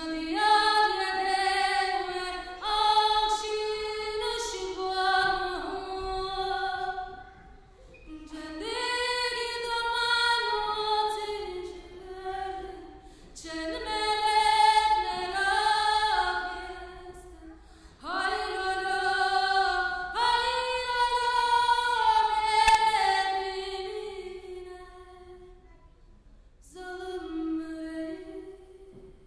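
A woman singing unaccompanied, a Kurdish Alevi song in long, wavering melodic phrases with short pauses between them.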